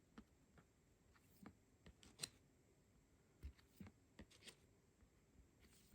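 Faint clicks and light slides of trading cards being handled and flicked through by hand, a dozen or so soft ticks over near silence.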